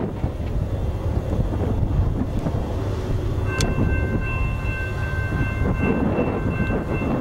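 Distant diesel freight train rumbling, with wind buffeting the microphone. About halfway through, the locomotive's multi-chime air horn starts sounding a steady chord.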